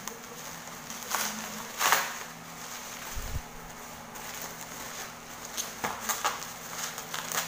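Plastic bubble wrap and packaging rustling and crinkling in the hands as a product is unwrapped, with irregular sharp crackles, the loudest about two seconds in and a cluster near the end, and a dull bump about three seconds in.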